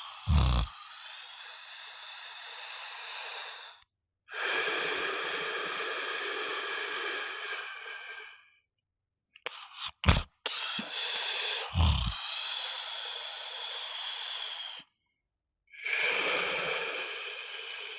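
A person snoring: four long, noisy breaths of about four seconds each with short pauses between, and short, deep snorts near the start and twice around the middle.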